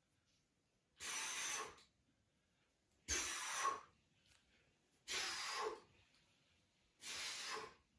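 A man's hard breaths during resistance-band push-ups: four short, noisy breaths about two seconds apart, one with each repetition.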